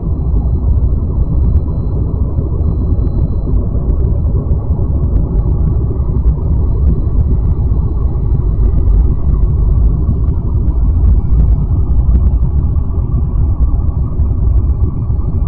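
Loud, steady deep rumble with faint high steady tones above it: a space-ambience sound presented as the sound of an exoplanet.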